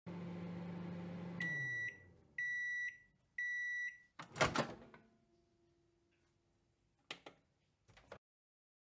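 Microwave oven sound effect: a low running hum that winds down, then three high beeps about a second apart marking the end of the cooking cycle. A loud clunk follows, then a faint steady tone and two small clicks.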